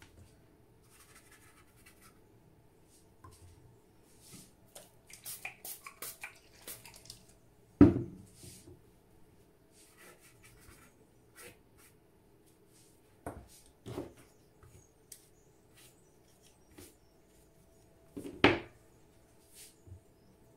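A paintbrush scrubbing and dabbing on watercolour paper in short scratchy strokes, with a few louder sharp knocks about eight, thirteen and eighteen seconds in.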